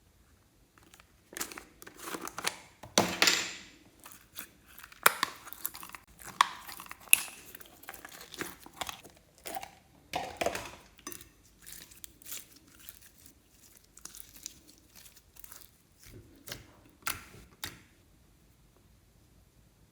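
Close-up tearing and crinkling handling noises, a rapid irregular run of crackles and tears that starts about a second in, is loudest in the first half and thins out near the end.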